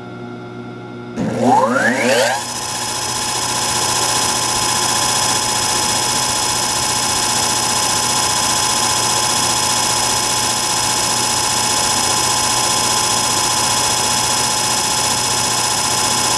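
Antique Allis-Chalmers 10 hp three-phase electric motor starting on a phase converter: about a second in it comes on with a sudden loud surge and a whine rising quickly in pitch as it runs up to speed, then runs steadily with a steady whine and a rush of air.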